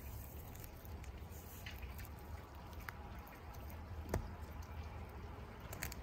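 Faint rustling and light taps of a fabric seatbelt silencer being handled and wrapped around a seat belt, with one sharper tap about four seconds in, over a steady low rumble.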